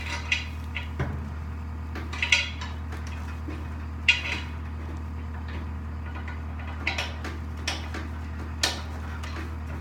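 Scattered sharp metal clinks and taps, about seven in all at irregular intervals, as bolts and hand tools are handled during assembly of a skid-loader power broom, over a steady low hum.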